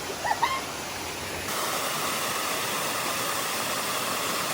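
Rushing water, a steady hiss that steps up louder about one and a half seconds in.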